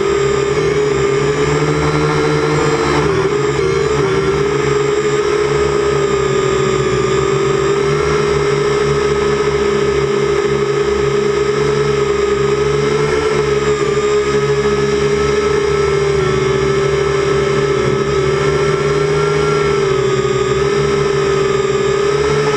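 Syma X8C quadcopter's motors and propellers running steadily in flight, a loud, constant hum that wavers slightly in pitch as the throttle shifts.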